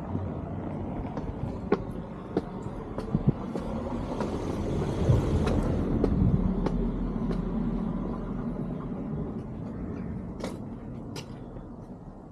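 A motor vehicle passing by, its sound swelling to a peak about halfway through and then fading. Scattered sharp clicks sound over it.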